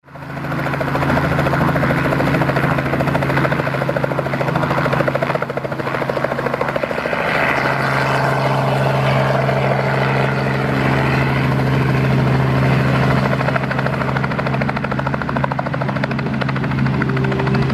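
Robinson R44 helicopter flying at low height: the fast, even beat of its two-blade main rotor over the steady hum of its Lycoming six-cylinder piston engine, loud throughout after rising in the first moment.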